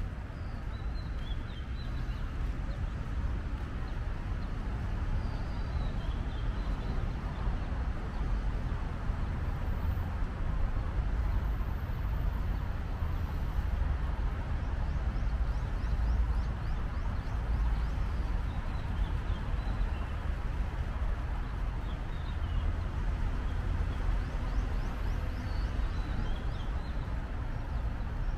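City park ambience: a steady hum of distant traffic with a low rumble, and scattered bird chirps.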